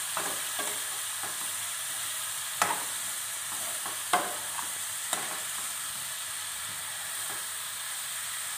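Mushrooms sizzling steadily in oil in a nonstick frying pan while a metal spatula stirs them. The spatula knocks against the pan a few times, loudest about two and a half and four seconds in.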